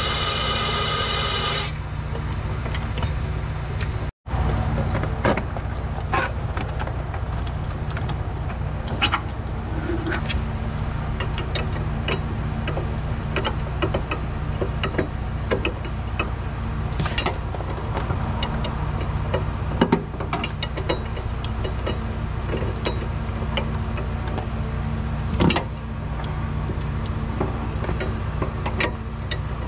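Car engine running steadily, with scattered light clicks and taps over it. A tone-rich whine stops about a second and a half in, and the sound cuts out for an instant about four seconds in.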